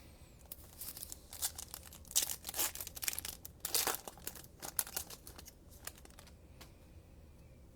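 Plastic wrapper of a trading-card pack being torn open and crinkled: a run of crackly rustles that dies away after about five seconds.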